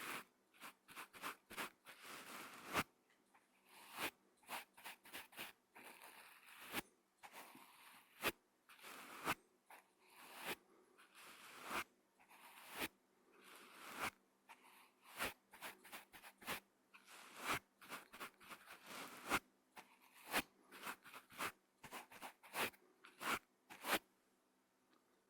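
Brush strokes on a microphone: a long run of short sweeps, about one or two a second at an uneven pace, some drawn out a little longer, stopping shortly before the end.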